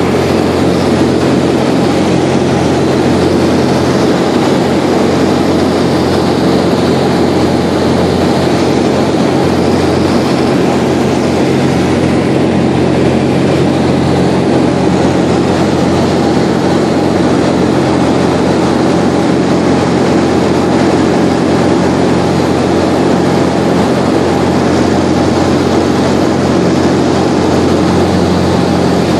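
Propeller aircraft's engine droning steadily in flight, heard from inside the cabin: a constant low hum over a wide rush of air noise.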